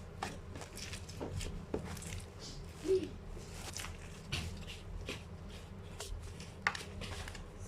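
Slime being squeezed and stretched by hand: scattered soft clicks and crackles, over a steady low hum.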